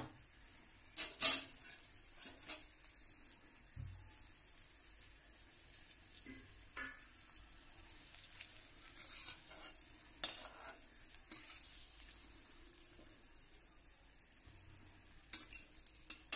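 Steel slotted spoon clinking and scraping against a steel kadhai as fried potato pieces are lifted out of hot oil, over a faint sizzle of the oil. A few sharp clinks stand out, about a second in and again around seven and ten seconds in.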